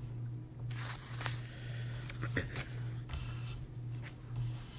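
Quiet room tone with a steady low hum, broken by a few faint rustles and a short click about halfway through.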